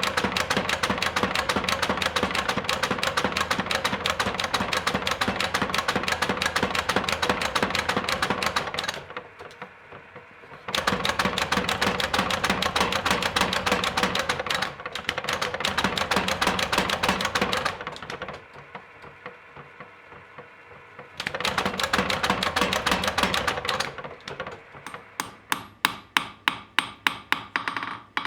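Hammer blows on hot steel at the anvil while forging a weeding fork: long runs of rapid, closely spaced ringing strikes, broken twice by short pauses, then separate, louder strikes at about three a second near the end.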